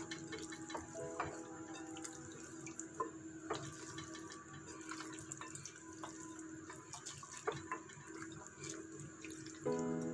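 Hands squishing and turning soy-sauce-marinated chicken pieces in a glass bowl: faint, scattered wet squelches and clicks. Quiet background music plays under it and gets louder near the end.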